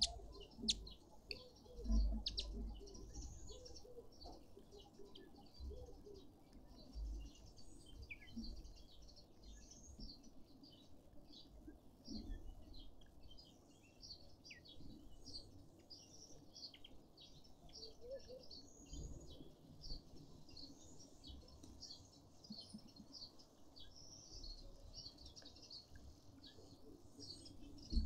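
Small birds chirping and twittering in many short, high notes throughout, with a few low thumps, the loudest about two seconds in.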